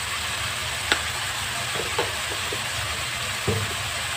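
Chopped vegetables frying in oil in a pan, a steady sizzling hiss with a few faint clicks.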